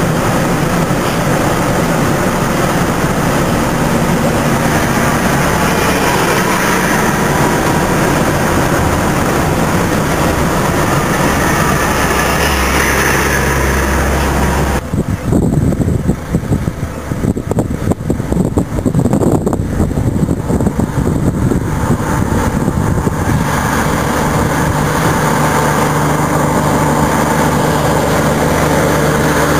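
Road trains, multi-trailer trucks, driving past: the diesel engine runs steadily, growing louder as the truck comes close. About halfway it gives way to an uneven, gusting rush as the long string of trailers goes by, then a steady engine sound returns near the end.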